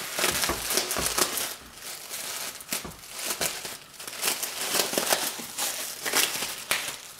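Plastic bubble wrap crinkling and rustling as it is handled and trimmed with scissors, with irregular crackles throughout.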